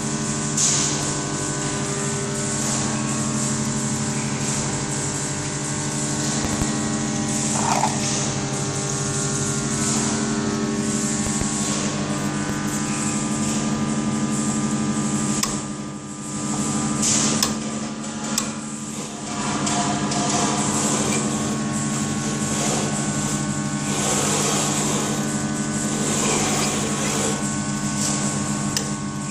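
Electric rotary tool driving a homemade cutting stand, running steadily with a constant motor whine; a high hiss rises and falls over it as it cuts, and the sound dips briefly a little past halfway.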